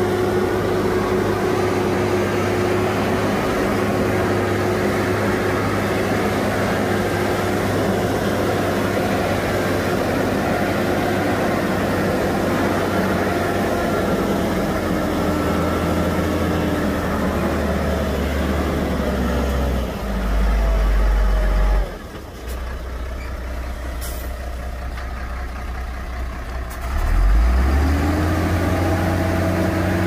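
Shantui bulldozer's diesel engine running with a steady note, its pitch sagging slowly over several seconds. About two-thirds through it gives a deep rumble and drops to a quieter, lower note, then surges back up near the end with the pitch rising.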